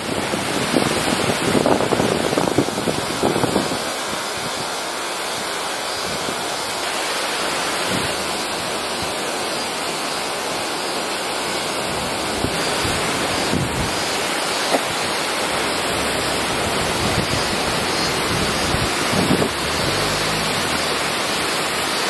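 Steady rushing roar of the Ōtodoro waterfall's falling water, with wind buffeting the microphone in the first few seconds and again near the end.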